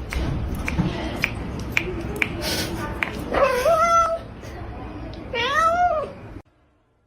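A cat meowing twice, two drawn-out meows about two seconds apart, each rising and falling in pitch, over a noisy background with a few sharp clicks.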